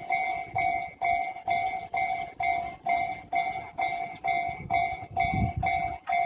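Japanese level-crossing warning bell ringing: an electronic 'kan-kan' tone repeating evenly about twice a second. A train's low rumble swells in about five seconds in.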